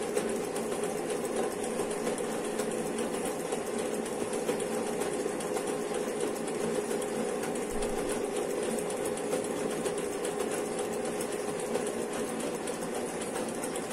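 Circular linking machine running steadily, its needle chain-stitching a knitted waistband onto the trouser panels as the dial turns. A steady hum with fast, even ticking from the stitching.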